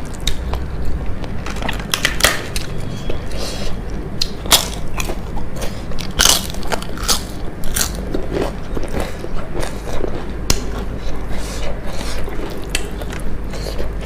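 Close-up biting and chewing of crisp fried food: irregular crunches and crackles, a few of them louder, over a steady low hum.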